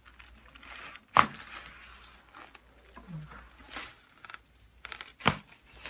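Two sharp joint cracks during a chiropractic spinal adjustment, a loud one about a second in and another near the end, with soft rustling of the patient on the table between them. The release is of a joint the chiropractor calls locked up.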